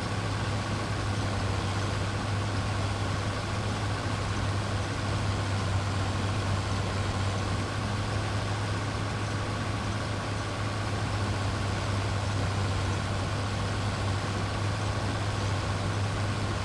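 Engine of harvest machinery running steadily, a constant low drone with a thin higher whine above it.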